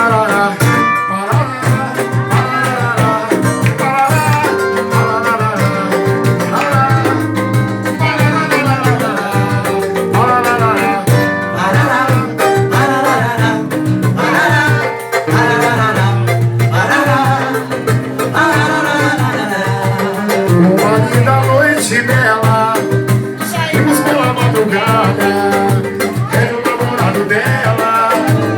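Instrumental passage of Brazilian bar-style band music: a steady beat with drums and bass under a melodic lead line, in a Latin dance style.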